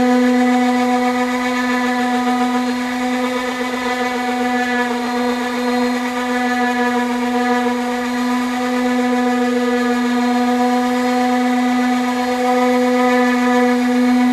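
Power tool running an abrasive sanding pad over sheet-metal bodywork, a loud steady motor whine that hardly changes in pitch.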